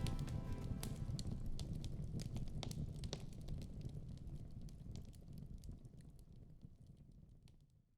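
Open wood fire in a fireplace burning with a low rumble and scattered sharp crackles and pops, fading out steadily to silence near the end.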